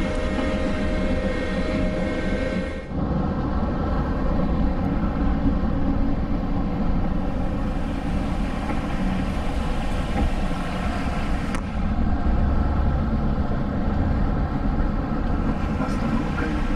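Steady running noise inside a moving trolleybus: low rumble with a faint steady motor hum. About three seconds in it changes abruptly to a heavier low rumble.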